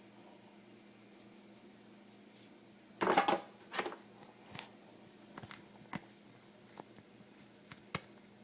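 Kitchen handling sounds: quiet room tone with a low hum, then about three seconds in a short loud rattle and clatter, followed by a smaller rattle and a few light clicks and taps.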